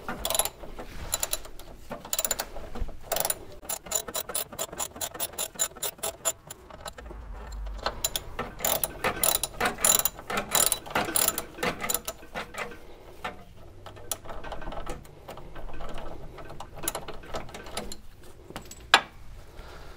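Socket ratchet clicking in quick runs with short pauses, working a brake line fitting loose from the proportioning valve.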